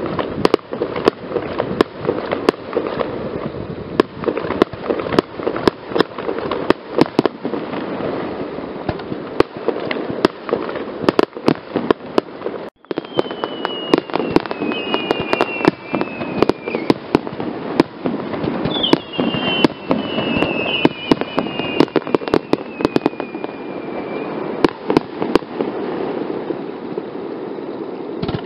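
Fireworks display: aerial shells bursting in a rapid, irregular string of bangs and cracks over a steady background of noise. In the second half, several whistles slide down in pitch, and the sound drops out briefly near the middle.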